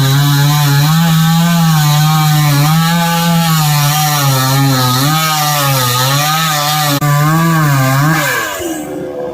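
Chainsaw engine running at high revs, cutting a coconut tree; its pitch wavers up and down as it cuts, then falls away near the end as the throttle is let off.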